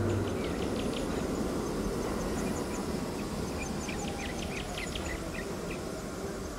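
Small birds chirping in scattered short calls, busiest about four to five seconds in, over a steady low rumbling background ambience with faint high insect-like ticking.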